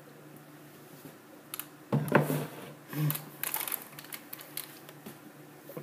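Plastic clicks and rustling from over-ear headphones being handled and pulled off, a quick irregular run of small knocks close to the microphone.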